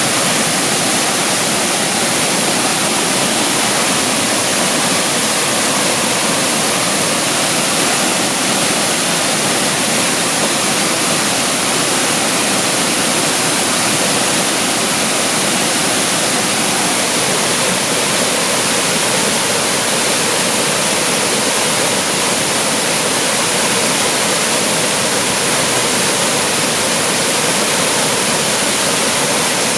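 A waterfall pouring steadily: a continuous, even rush of falling water with no breaks or changes.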